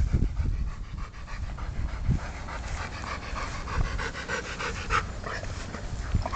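Ten-week-old Rottweiler puppy panting in a steady run of short breaths.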